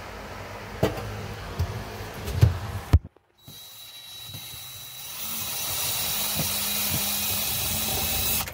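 Cordless drill-driver backing out the screws that hold a refrigerator in its cabinet. Short motor runs come with clicks and knocks of the bit on the screws. After a brief break about three seconds in, there is a steadier high whir that gets louder about five seconds in.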